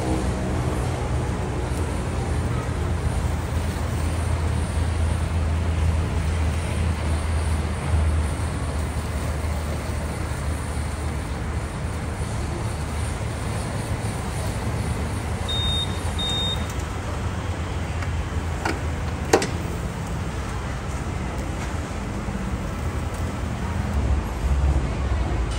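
Steady roaring of a handheld blowtorch flame searing beef skewers on a grill, with a deep rumble underneath. Two short high beeps sound about midway, and a sharp click follows a few seconds later.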